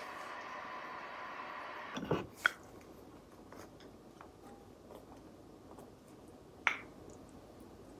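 A steady hum that cuts off about two seconds in. Then small sounds of a glass mug being handled and drunk from, with sharp clinks twice just after the hum stops and once more near the end.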